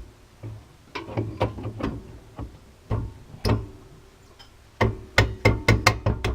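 Small hammer tapping a part into its seat on a Ford Escort's rear wheel hub during a wheel-bearing job: sharp metallic knocks with a short ring. They come at uneven intervals at first, then as a quick run of strikes, several a second, in the last second and a half.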